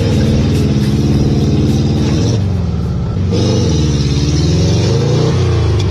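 A car engine revving hard under load, its pitch sagging about halfway through and then climbing and falling again.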